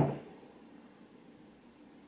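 Near silence: a faint steady hiss of room tone, after a short sound dies away in the first moment.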